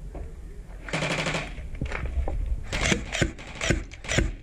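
Airsoft gun firing: a short dense burst about a second in, then a run of rapid single shots about three a second from near the end, over low wind rumble on the microphone.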